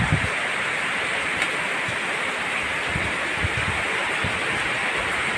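Heavy downpour: a steady, dense rushing hiss of rain, with a few soft low bumps partway through.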